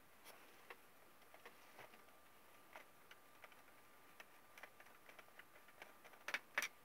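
Faint, irregular small clicks and ticks of a screwdriver driving screws into an HP Pavilion tx1000 laptop's plastic bottom case, with two sharper clicks near the end.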